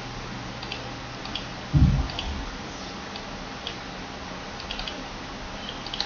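Scattered faint clicks of a computer mouse and keyboard over a steady low background hiss, with a single dull low thump a little under two seconds in.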